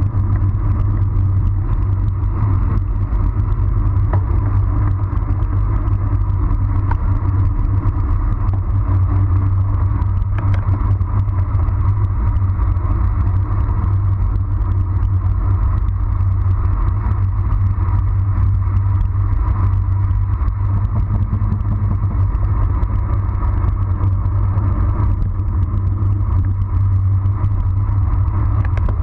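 Steady wind rumble buffeting the microphone of a camera mounted on a road bicycle as it descends at about 30 to 45 km/h.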